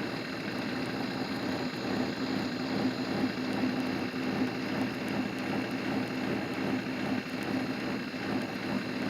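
A steady low mechanical hum with faint, high, steady tones above it, unchanging throughout.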